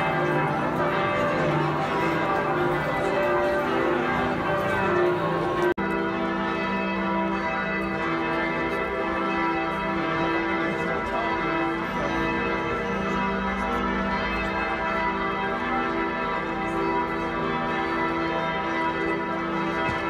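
The bells of Giotto's Campanile, Florence Cathedral's bell tower, ringing together, their strokes overlapping into a continuous peal of many steady tones, with a momentary break about six seconds in.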